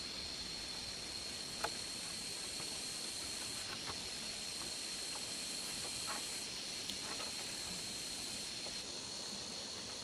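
A steady high-pitched insect drone with a hiss above it, and a few faint clicks and taps as a thin bamboo strip is threaded and pulled tight around bamboo poles.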